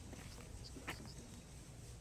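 Faint outdoor ambience with a steady low background rumble, broken by a single light click about a second in.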